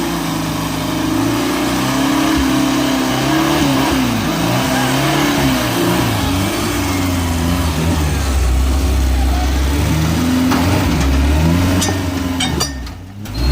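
Off-road vehicle's engine revving up and down, its pitch rising and falling again and again, with a few sharp clicks near the end.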